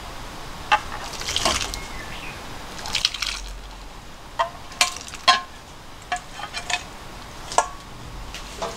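Miso soup ladled into stainless steel cups: splashes of soup pouring, then a series of sharp clinks as the ladle knocks against the metal pot and cups, each with a brief metallic ring.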